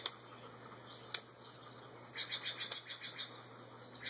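Wooden skewers being snipped off with a hand cutter: three sharp snaps about a second apart. Quick, evenly repeated high chirping in the background partway through.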